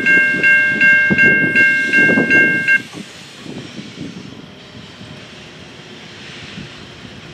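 Safetran Type 3 electronic crossing bell ringing at about three strokes a second over the low rumble and clatter of the train's last cars passing. The bell cuts off about three seconds in as the crossing clears and the gates start to rise, leaving a quieter low rumble.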